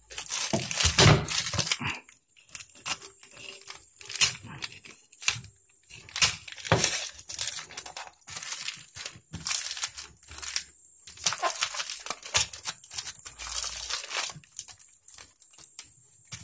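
Packing tape and plastic wrapping being pulled and torn off a parcel by hand, in irregular bursts of ripping and crinkling.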